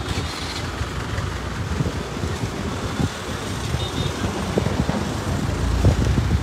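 Irregular low rumble of wind buffeting a phone microphone carried by someone walking with a crowd.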